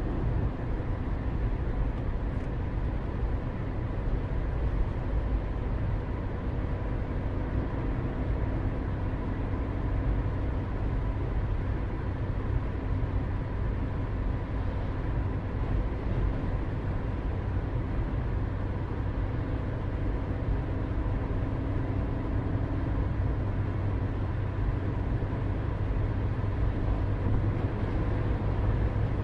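Steady low rumble with a faint constant hum over it, unchanging throughout.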